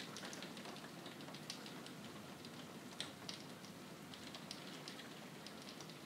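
Rain falling steadily: a faint hiss of rain with many separate drops ticking, one sharper drop about halfway through.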